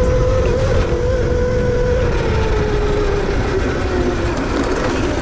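Valtinsu EM5 Pro electric mini dirt bike's motor whining steadily, then dropping in pitch over the last few seconds as the bike slows, over a steady rushing rumble.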